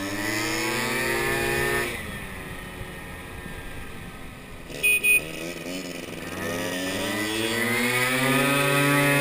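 Small moped scooter engine revving up as it accelerates, easing off about two seconds in and running low, then climbing again from about six seconds. Two short, loud horn beeps come about five seconds in.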